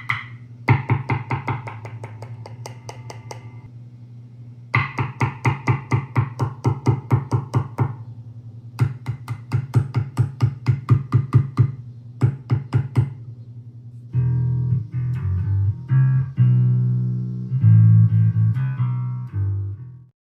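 Washburn Bantam electric bass played through an amp to try out its new separate volume and tone controls: a note picked rapidly over and over in four runs, its treble brighter in some runs than others, then several held notes of changing pitch that stop just before the end.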